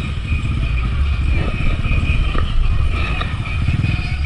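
A motorcycle engine running steadily, with a constant hiss of heavy rain over it and a few faint clicks.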